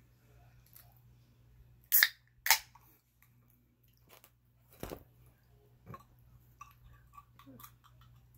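Pull-tab juice can being cracked open: two sharp snaps about half a second apart, followed a few seconds later by a duller knock and some light clicks and rustling.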